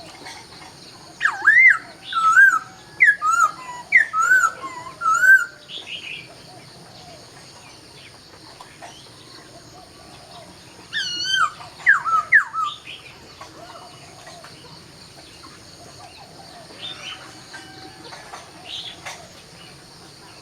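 Laughingthrush singing: a run of loud whistled notes gliding up and down, starting about a second in, then a second shorter run around eleven seconds in, with a few fainter notes near the end. A faint steady high tone sits underneath.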